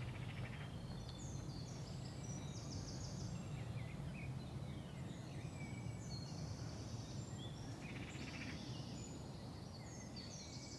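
Several small birds singing and calling in short trills and chirps, one after another, over a steady low background rumble.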